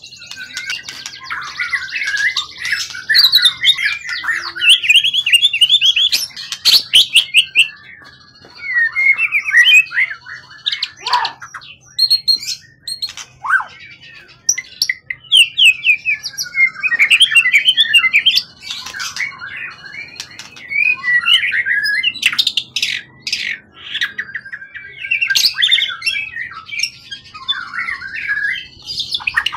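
Caged songbird singing in long, fast, varied phrases of quick chirps, trills and sharp loud notes, broken by short pauses.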